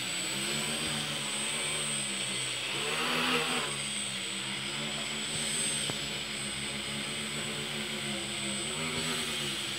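Homemade tricopter's three brushless motors and propellers whirring as it hovers, the pitch drifting up and down as the throttle changes. There is a louder rush of propeller noise about three seconds in.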